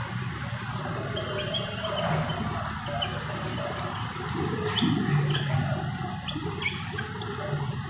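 A lecturer writing a heading on a classroom board, with short scattered squeaky strokes over a steady background noise.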